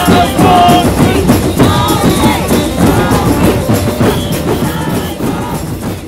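Music with drums, fading out gradually over the last few seconds.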